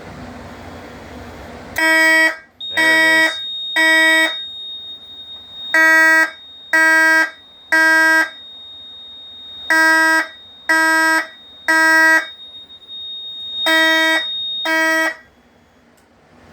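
FCI fire alarm horn sounding in the Code 3 temporal pattern: three half-second blasts, a pause, repeated, set off by a smoke detector going into alarm on canned smoke. A steady high-pitched tone runs beneath. The horn stops two blasts into the fourth round as the alarm is silenced.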